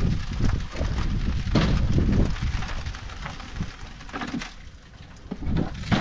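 Dry sand pouring out of the bottom of a diamond-plate metal sand box on the back of a propane refrigerator and spilling onto the ledge below, as the sand battery is emptied. It is a continuous hiss that thins out about four seconds in and picks up again near the end.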